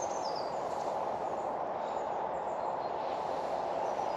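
Steady rushing of breath blown through a long metal bellows pipe into a campfire's glowing coals, reviving the embers into flame. A small bird chirps briefly at the start.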